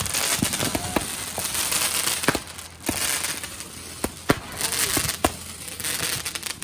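Consumer fireworks going off: a dense crackling hiss with a dozen or so sharp bangs and pops at irregular intervals.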